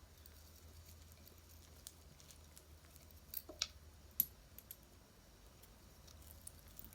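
A few faint, sharp clicks and taps as a pearl necklace and its metal clasp are handled, over a low steady hum.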